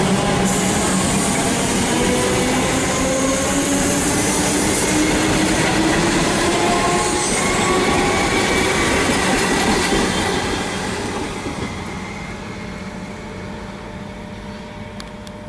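Comeng electric suburban train accelerating past, its traction motors whining steadily upward in pitch over wheel-on-rail noise. After about ten seconds it fades away as the last car goes by.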